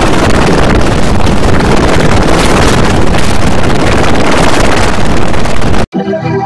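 Loud, harshly distorted noise from an effects-processed audio track, dense across all pitches with no clear tones. Near the end it cuts off suddenly and gives way to a steady organ-like chord.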